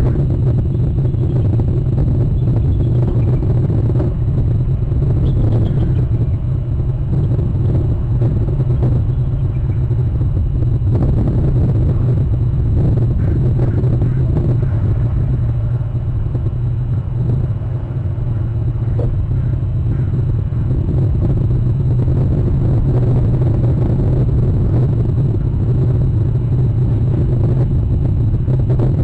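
Steady low rumble picked up by an outdoor wildlife-camera microphone, with no distinct calls or other events in it.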